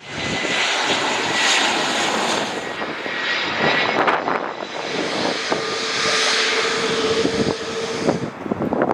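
Airbus A320neo jet airliner's engines and airflow: a steady rushing noise carrying a thin high tone for the first couple of seconds, then a lower steady tone from about five seconds in, with a few scattered clicks and knocks.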